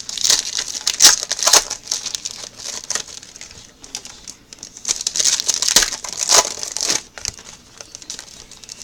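Plastic packaging crinkling and tearing as a sealed trading card box is unwrapped by hand. It comes in crackly bursts with short pauses between them.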